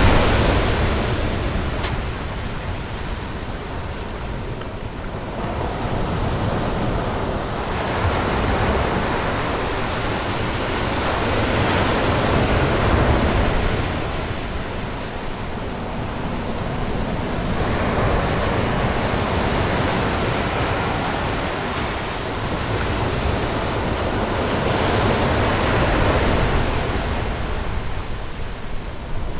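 North Sea surf breaking on a beach, the wash swelling and falling back every several seconds, over a steady low rumble of wind.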